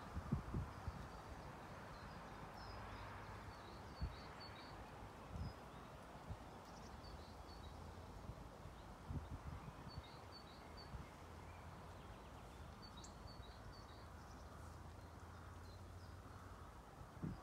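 Quiet outdoor ambience: a steady background hum with faint, short, high chirps now and then, and a few soft low thumps.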